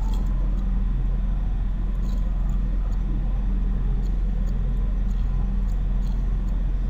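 Steady low hum with background noise, with no clear single event.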